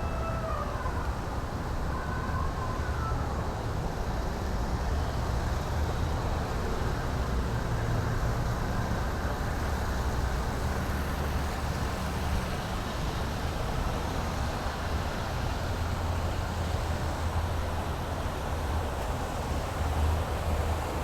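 Steady outdoor rumble like road traffic, heavy in the low end, with a brief high pitched call about two seconds in.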